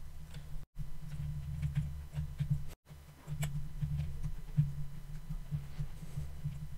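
Low steady hum of room and microphone noise, with a few faint clicks from the computer as tracking frames are stepped. The sound cuts out completely twice, briefly.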